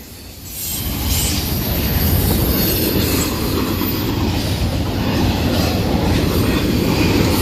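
A fast freight train's intermodal container cars rolling past close by: a steady rumble of steel wheels on the rails that builds over the first second and then holds.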